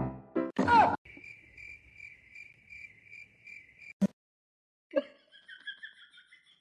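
Cricket chirping, an even high pulsing about three times a second, that cuts off suddenly about four seconds in with a sharp click. A knock follows a second later, then a second insect-like chirping. Just before the first chirping comes a brief loud sound sliding down in pitch.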